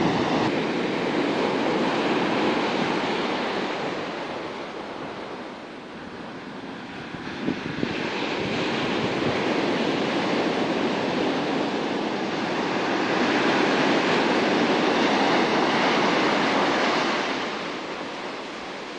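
Ocean surf breaking and washing up the beach, a rushing noise that swells and fades in slow surges, dipping about six seconds in and loudest about two-thirds of the way through. A couple of brief knocks sound near the middle.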